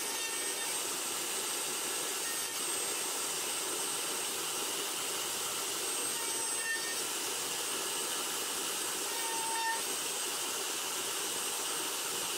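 Table-mounted router running steadily with a faint high whine, its 1/4-inch straight bit cutting box-joint slots in a wooden workpiece.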